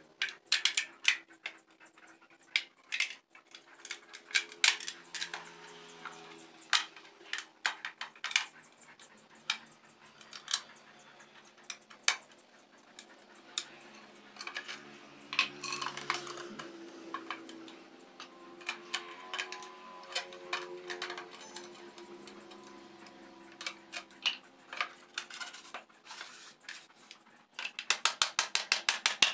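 Metal parts of a motorcycle exhaust clinking and knocking as they are handled and worked with hand tools, in scattered sharp taps. Near the end comes a quick run of clicks.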